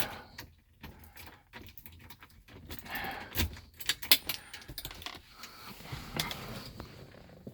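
A bunch of car keys jangling with irregular clicks and rattles, as a key is put into the ignition and turned.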